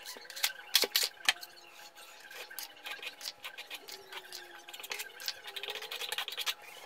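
A few sharp metallic clacks at the metal drywall mud pan, then a run of fine scraping ticks as joint compound is worked onto the drywall joint.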